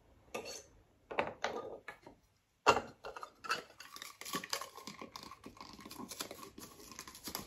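A few sharp knife clicks on a wooden chopping board as garlic cloves are peeled, then a hand-held twist garlic crusher being worked: a steady run of rapid small clicks and crunches as the cloves are crushed.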